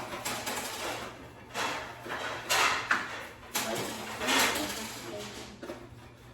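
Rustling and handling noises of stool parts and hardware being moved about, in several short bursts, with a sharp click about three seconds in.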